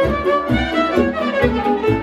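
Band dance music with a violin playing the lead melody over a steady bass beat.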